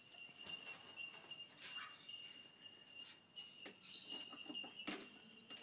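Faint outdoor background: a steady, thin high-pitched tone, with scattered light clicks and knocks.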